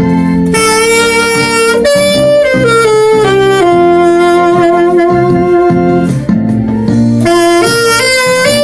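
Alto saxophone played with a natural, dry tone, carrying a slow melody in long held notes with a stepwise falling phrase in the middle, over a recorded accompaniment with keyboard.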